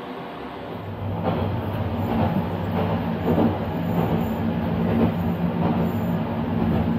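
Diesel railcar of the Nagaragawa Railway: a steady engine hum, then about a second in a louder, rougher sound of the car running, the engine pulling with wheels rumbling on the track.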